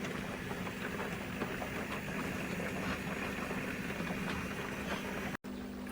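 Steady low electric hum with a faint hiss, broken by a brief dropout near the end.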